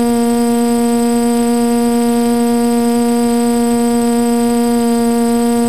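Multirotor drone's motors and propellers holding a hover, recorded on board: a loud, steady, even-pitched hum with a high whine above it.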